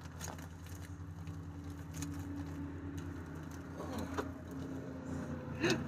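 Faint rustling and crinkling of a plastic mailer bag being handled and opened, a few light crinkles over a steady low hum.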